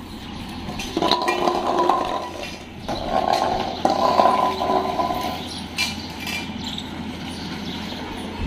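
Stainless-steel dog bowls scraping and clinking on a tiled floor as dogs eat from them, in two ringing, rattling spells of about one and two seconds with sharp clinks in between.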